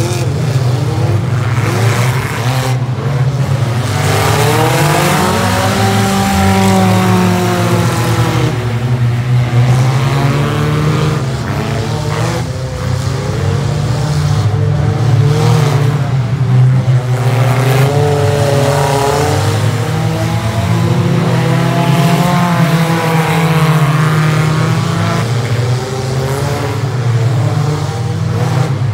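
Engines of several figure-8 derby cars racing on a dirt track, repeatedly revving up and dropping back in overlapping waves of rising and falling pitch over a continuous low rumble.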